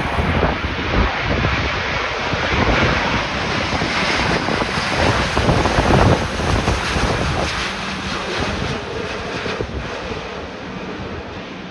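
Heavy wind buffeting the microphone over the rushing jet noise of an Airbus A350 on a windy landing. The noise swells about halfway through, then slowly fades.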